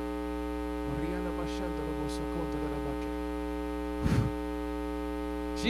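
Steady electrical mains hum with many overtones, under faint murmured voices at prayer; a short loud burst about four seconds in.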